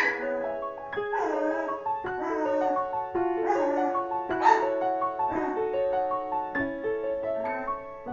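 Piano music playing, with newborn sprocker spaniel puppies squealing and whimpering now and then over it; the sharpest squeal comes right at the start, another about halfway through.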